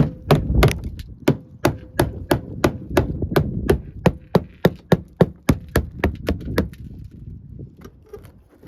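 Rapid blows of a hand tool knocking thick body filler out of a rusted 1972 VW Beetle body panel, where there is no metal behind it. About three sharp knocks a second, which get weaker and stop about seven seconds in.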